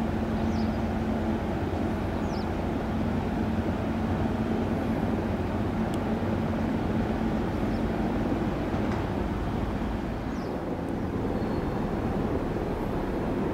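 Steady outdoor background rumble with a low hum that fades out over the first several seconds, and a few faint, short high chirps.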